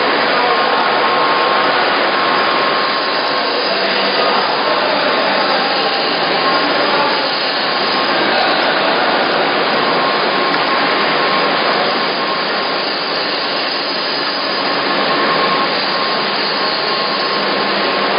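Steady, loud running noise of dairy-plant machinery, with a thin steady whine running through it.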